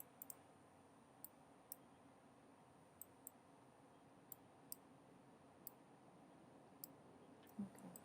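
Near silence broken by about a dozen faint, irregularly spaced computer mouse clicks.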